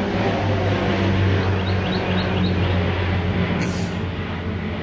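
Aircraft flying low overhead from a nearby military airfield: a loud steady drone with a rushing noise, easing off slightly in the second half.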